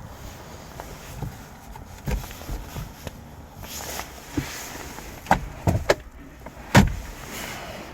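A few sharp knocks and thumps over a noisy background, the loudest about two-thirds of the way through.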